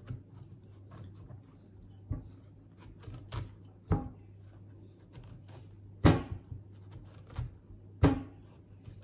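Large kitchen knife scoring a pomegranate's rind on a wooden cutting board: scrapes of the blade through the skin and several sharp, irregular knocks of the knife and fruit against the board, the loudest about six and eight seconds in.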